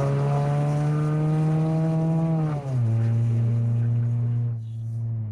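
2004 Honda CR-V's four-cylinder engine running loud through an exhaust with its catalytic converter stolen. The engine note climbs slowly under acceleration for about two and a half seconds, drops suddenly at a gear change, then holds steady at a lower pitch and eases off a little near the end.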